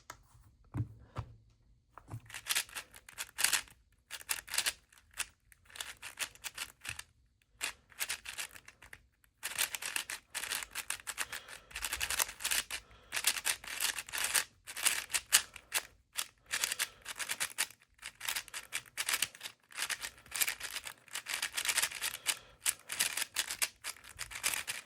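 MoYu AoSu WR M V7 4x4 speedcube being turned fast during a timed solve: rapid runs of plastic clicking and clacking as the layers snap round, broken by short pauses.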